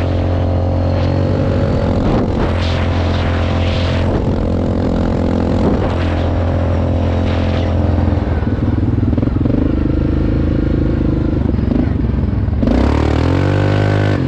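Yamaha Grizzly 700 ATV's single-cylinder engine running at a steady cruise, heard from the rider's seat. Near the end the engine note dips and climbs again, and a hiss of tyre and road noise joins in.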